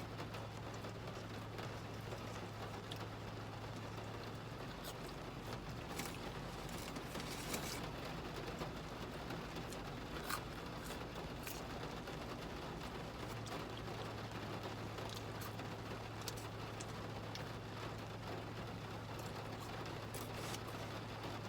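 Steady rain pattering, with scattered light ticks and a constant low hum underneath.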